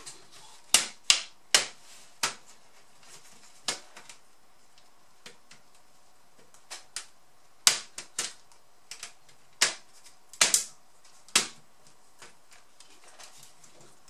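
Plastic snap-fit clips of a Lenovo G50-70 laptop's housing clicking as the case seam is worked apart or pressed together by hand: a series of sharp, irregular clicks, about a dozen loud ones with smaller ones between.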